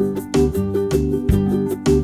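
Instrumental intro music with a steady, bouncy beat of plucked-sounding notes.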